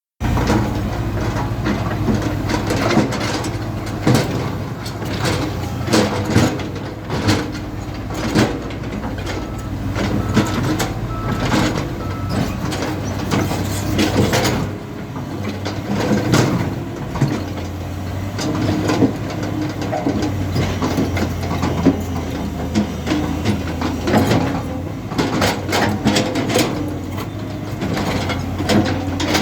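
Backhoe loader's diesel engine running steadily while working, with frequent sharp metal clanks and knocks throughout; the engine note drops back briefly about halfway through before picking up again.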